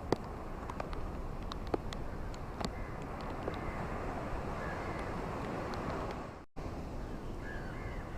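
Ocean waves washing steadily on a shore, with sharp clicks scattered through and faint bird calls now and then. About six and a half seconds in the sound dips away and cuts straight back in.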